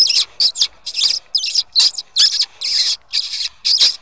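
Fox call (predator caller) squeaking in short, high, squeaky bursts, about three a second, imitating the squeals of distressed prey to draw a fox in.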